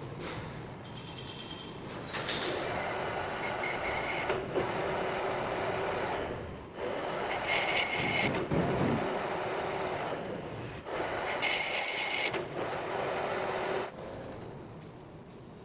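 Metal lathe running with a steady hum, broken by three short bursts of higher-pitched noise; it gets quieter after about fourteen seconds.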